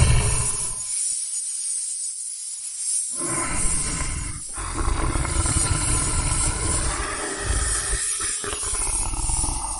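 Lion roaring sound effect: a loud roar right at the start, then after a lull of about two seconds a run of long roars with short breaks between them.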